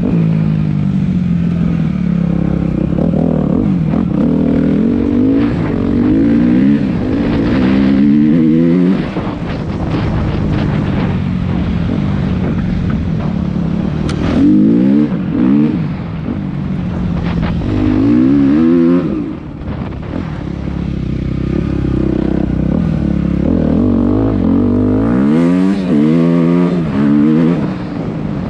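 Suzuki RM-Z250 four-stroke single-cylinder dirt bike engine being ridden, its pitch sweeping up again and again under throttle and dropping back between pulls.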